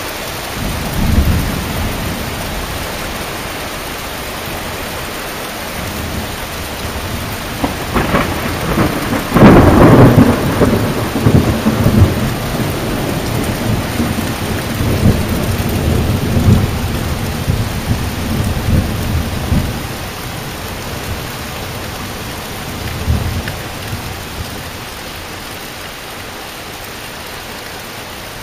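Heavy rain falling steadily, with low rumbles of thunder that come and go, the longest and loudest rolling through the middle.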